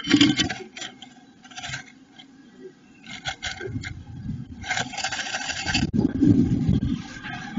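Blue tit scratching and rustling in moss and animal hair inside a wooden nestbox as it enters and works the nest cup, in several separate bursts of scraping, the longest about five seconds in. A low rumble follows near the end.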